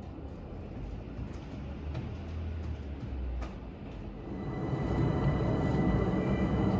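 A low steady rumble that grows louder about two-thirds of the way in, joined by a steady high whine: a jet airliner passing low overhead.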